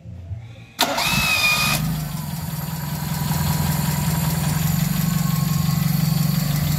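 Toyota Corolla 2E four-cylinder engine starting: about a second in the starter whines briefly, then the engine catches and settles into a steady idle. It is running after the distributor repair that cured its crank-no-start fault.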